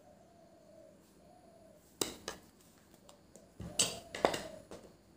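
A few sharp clinks and knocks of metal cookware being handled: one about two seconds in, then a louder cluster of knocks just before the end.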